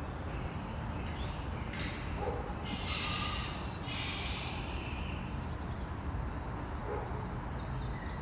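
Steady forest ambience: a constant insect drone over a low rumble, with a few short breathy noises about two to five seconds in.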